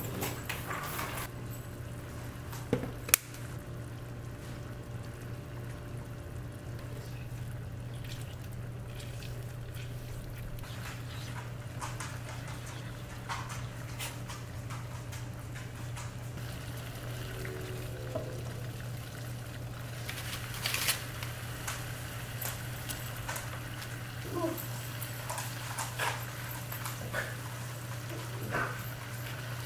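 Cooking at the stove: a wooden spoon stirring and scraping a sauce in a frying pan, with scattered clicks and knocks of spoon, pan and seasoning bottle, a sharp knock about three seconds in, over a steady low hum.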